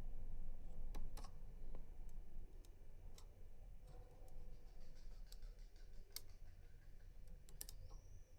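A rotor pick clicking irregularly as it is worked inside a FAC pin-tumbler lock cylinder: small, sharp metallic clicks over a steady low hum.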